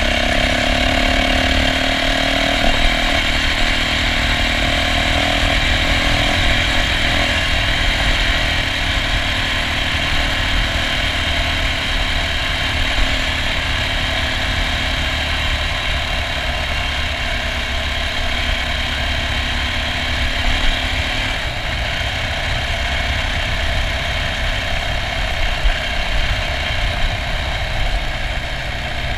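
Yamaha dirt bike engine running steadily under way as it is ridden, heard from the rider's onboard camera, with a low rumble of wind on the microphone.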